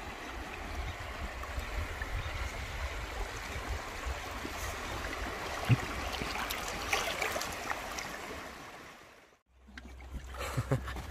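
Steady rushing water, like a flowing stream, that fades out suddenly about nine seconds in and gives way to a low steady hum with a few faint knocks.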